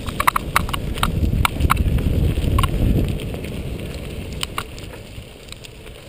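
Cyclocross bike ridden fast over bumpy dry dirt: a low rumble of tyres and wind, with sharp rattling clicks from the bike as it hits bumps, thickest in the first two seconds and once more about four and a half seconds in. The rumble fades toward the end.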